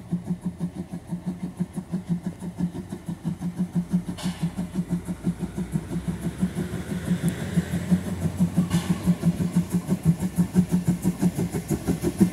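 Saxon narrow-gauge steam locomotive 99 1773-3, a DR class 99.77 2-10-2 tank engine, chuffing steadily at about four exhaust beats a second as it works its train towards the listener, growing louder as it nears.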